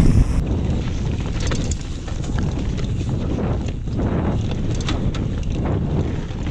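Rose mountain bike riding fast down a dirt forest trail: tyres rumbling over the ground and wind rushing over the bike-mounted camera's microphone, with the bike rattling and clicking over the bumps throughout.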